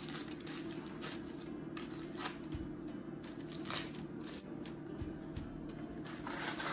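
Aluminium foil crinkling and rustling as it is pulled off a roast, with scattered light clicks of metal tongs, over a steady low hum.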